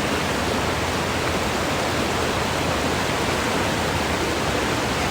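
Waterfall rushing: a steady, even wash of falling water with no change in level.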